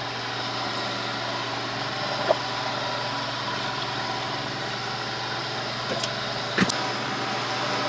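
Steady mechanical hum from a running appliance, with a few short clinks of metal tongs against a stainless steel stockpot, about two seconds in and twice near the end.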